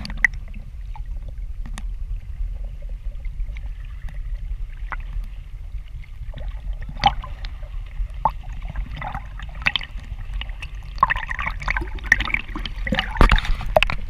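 Small sea waves lapping and splashing against a GoPro camera held at the water surface, heard as a steady low rumble with scattered clicks and splashes that grow busier in the last few seconds.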